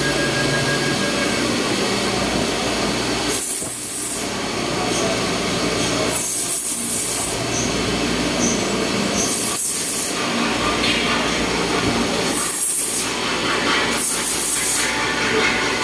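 CNC milling machine running, a steady mechanical noise broken by a brief high hiss that comes back about every three seconds.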